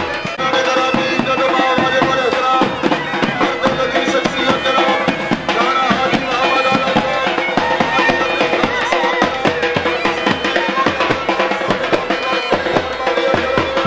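Pipe band playing: bagpipes carry a folk tune over a steady drone, with marching side drums beating along.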